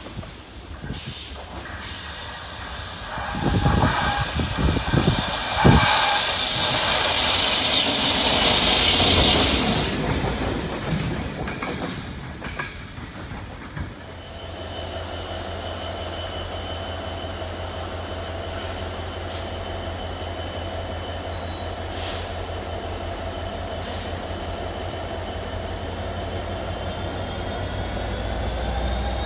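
A diesel locomotive passes close by, loud for several seconds with a rush of noise and wheel squeal, then fading. It is followed by a steady low hum from a Class 66 diesel locomotive's two-stroke V12 engine idling at a platform.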